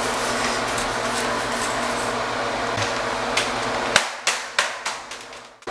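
A steady rushing noise cuts off abruptly about four seconds in. A quick run of about eight sharp clicks and taps follows, from plastic keyboard keys being handled.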